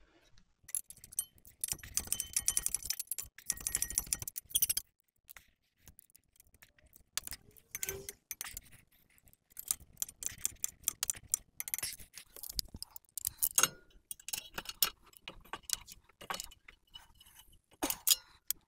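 Metal hand tools and suspension hardware clinking and rattling during front strut installation: a run of quick clicks, knocks and jingles, busiest in the first few seconds, then scattered sharper knocks.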